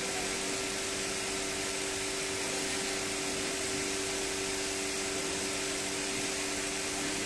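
Steady machine hum and whir of workshop equipment, like a running fan or blower: an even hiss with a constant low-mid tone and no change in pitch or level.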